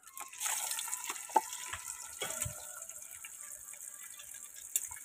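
Fish pieces frying in hot oil in an aluminium pot: a steady sizzle with small crackles, starting about half a second in as a piece goes into the oil, with a few sharper clicks.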